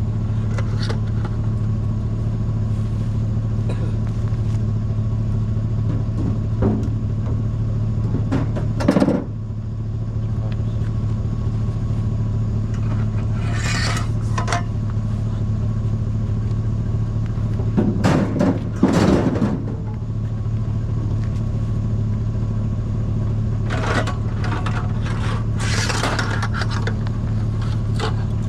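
Steady drone of a vehicle's engine and road noise heard from inside the cab while driving, broken by a few short, louder knocks or rattles, the strongest a little past halfway through.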